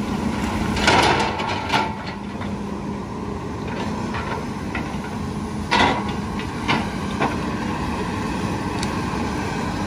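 Heavy diesel machinery running with a steady low hum, broken by several loud clanks and crashes of scrap debris as a Komatsu excavator's grapple works the pile. The loudest crashes come about a second in and again near six seconds.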